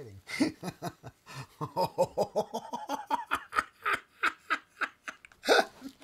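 A person giggling with excitement: a long run of short, quick laughs, about four or five a second.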